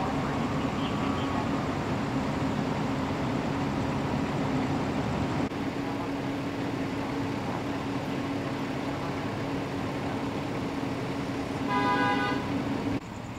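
Steady low hum of idling fire engines, with one short vehicle horn beep near the end.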